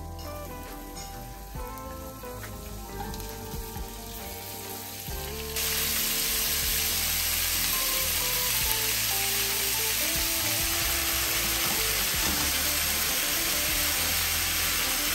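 Food frying in a hot pan: a loud, steady sizzle that starts suddenly about five and a half seconds in, over background music.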